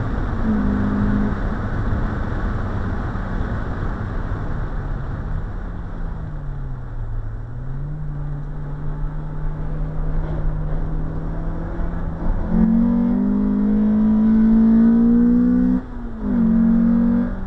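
Honda CR-X SiR's 1.6-litre VTEC four-cylinder heard from inside the cabin at track speed, with road and tyre noise throughout. It starts at high revs and eases off soon after, then runs at lower, steady revs for a long stretch with a dip in the middle. About two-thirds through it pulls hard again with rising revs, breaks briefly for a quick gear change near the end, and pulls on.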